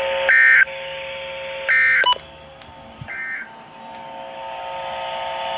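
Emergency Alert System End-of-Message data tones: three short warbling bursts of digital code, about a second and a half apart, the third fainter, marking the end of the alert. Underneath runs a steady held chord of tones that drops away after the second burst and returns near the end.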